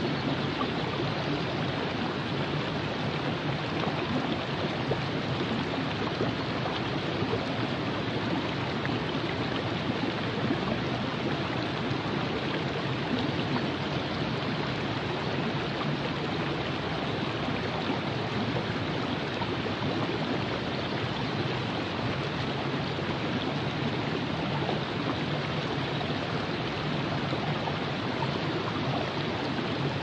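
Virgin River flowing: a steady, even rush of running water with no breaks or changes.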